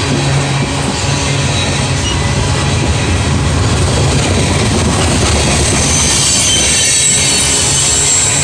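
A CSX freight train's steel-wheeled gondola cars rolling past close by: a steady rumble and rattle of wheels on rail. A thin, high wheel squeal creeps in over the last few seconds.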